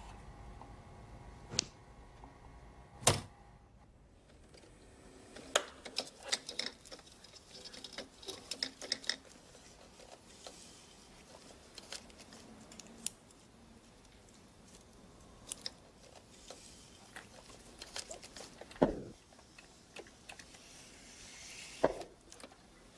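A reel-to-reel tape recorder runs with a faint steady hum until a sharp click about three seconds in stops it. Then scissors snip magnetic recording tape and hands handle the deck: a scattered series of small clicks and snips.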